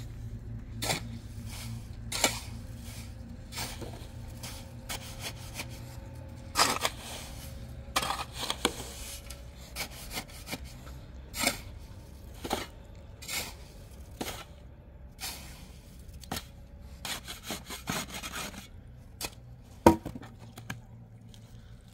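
Steel shovel blade scraping and digging into a heap of sand, in irregular gritty scrapes and crunches. A single sharp knock near the end is the loudest sound.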